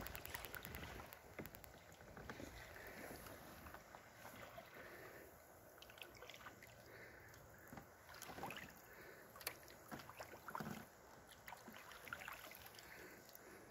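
Quiet kayak paddling on calm water: soft paddle strokes with scattered drips and small splashes off the blades.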